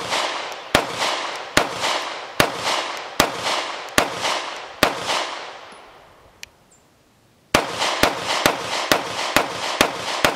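FN Reflex 9mm micro-compact pistol firing. A steady string of seven shots about 0.8 s apart is followed by a short pause and then a quicker string of about seven shots at roughly two a second. Each shot trails off in echo.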